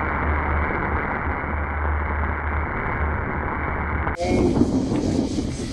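Steady rushing wind noise with a low rumble on the Mini DV camera's own microphone. About four seconds in it cuts abruptly to a clearer recording with a few short wavering whistles and a sharp crack at the very end.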